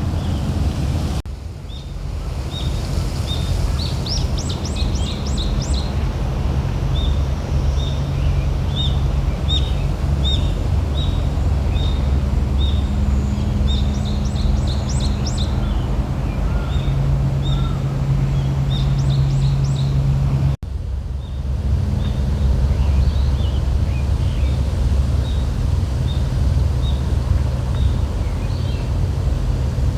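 Wind rumbling on the microphone with a steady low hum underneath, while a bird calls over it with short high chirps about twice a second and, a few times, a quick series of rising notes.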